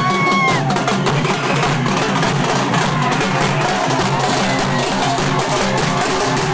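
Loud music with a fast, driving drum beat.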